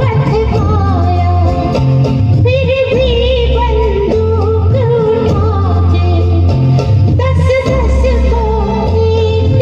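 A song with a singing voice over a backing track with a steady bass line, played loud through PA loudspeakers. The sung line wavers with vibrato.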